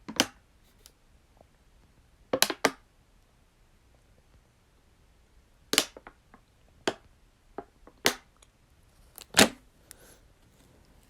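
Irregular sharp clicks and knocks, about seven spread over several seconds with no steady rhythm, the loudest near the end.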